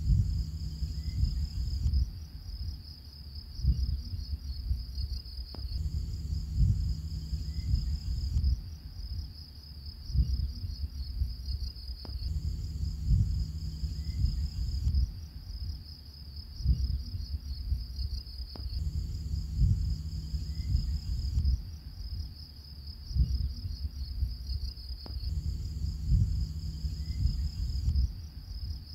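Looped background track of crickets chirping: a steady, high, rapid chirring over a low rumble, the whole pattern repeating about every six and a half seconds.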